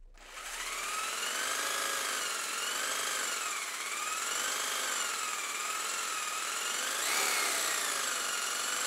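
Small DC hobby motor spinning a propeller on a homemade toy car, cutting in suddenly and running with a high whine whose pitch slowly wavers up and down.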